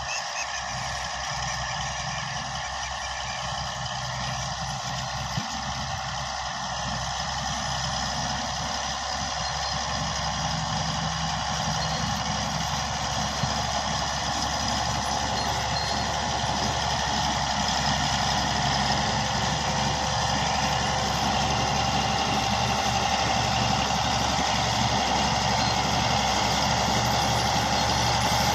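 Komatsu D155A bulldozer's diesel engine running steadily, growing gradually louder.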